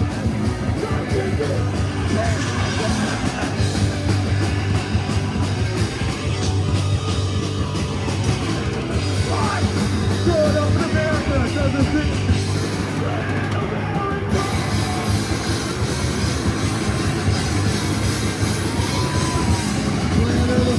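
Live rock band playing loudly, with singing over the instruments.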